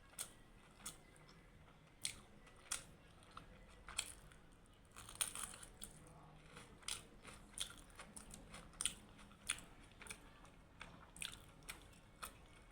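Close-up mouth sounds of a person chewing homemade buffalo momo: irregular wet smacks and clicks of chewing, with no talking.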